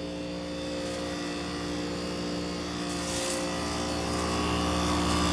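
1996 two-ton Heil heat pump running in heat mode: a steady hum of its scroll compressor and outdoor fan, growing slowly louder.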